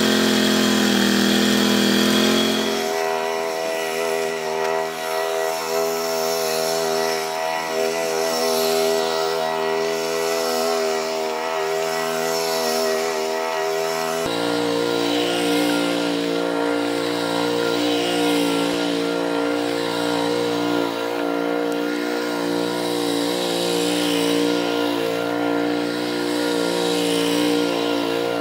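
Case Ingersoll garden tractor engine running at a steady speed with a buzzy note that sounds like a two-stroke, as the tractor drives and turns. Its tone changes abruptly twice, about 3 and 14 seconds in.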